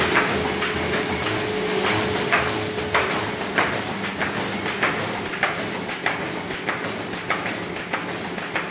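B&R Moll Premier 36 sheet-feeding machine running, sheets carried from a stacked hopper along belt conveyors. A steady mechanical din with a sharp clack repeating a little under twice a second, and a steady whine that stops about three seconds in.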